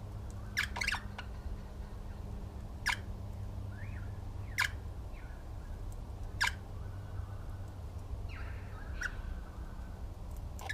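Birds giving short, sharp calls every second or two, with a few fainter chirps between, over a steady low hum.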